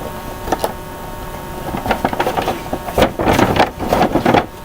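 Rustling and clattering of small plastic toys and their packaging being handled. There is a single click about half a second in, and a dense crackling run of rustles from about two seconds in.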